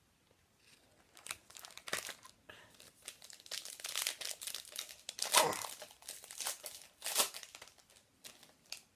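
Plastic trading card pack wrapper crinkling and tearing as the pack is opened: an irregular run of crackles, loudest around the middle.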